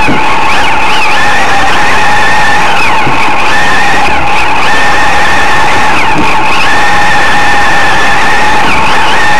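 Race car engine at high revs, heard loud and distorted from on board, its steady note dipping briefly and climbing back several times as the car circles a dirt oval.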